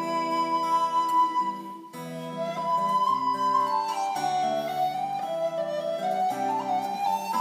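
Wooden recorder playing a slow, sustained melody over acoustic guitar accompaniment, with a brief break between phrases about two seconds in.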